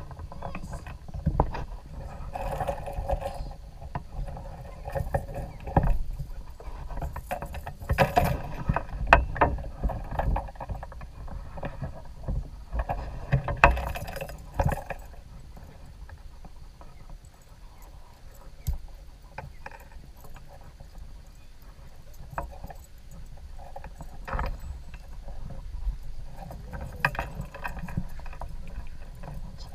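Irregular knocks, clicks and rustling from a caught sunfish being unhooked and handled in a kayak, with bumps against the hull. The handling is busiest in short spells: about two seconds in, around eight to ten seconds and around thirteen to fifteen seconds.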